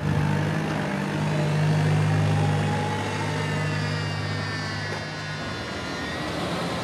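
An engine or motor running with a steady low hum, with fainter high whines that slide slowly in pitch; the hum stops about five and a half seconds in.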